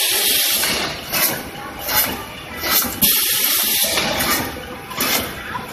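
Toilet paper production line machinery running, a flow-wrap packing machine among it: a loud hissing machine noise that surges over and over, roughly once or twice a second, with each machine cycle.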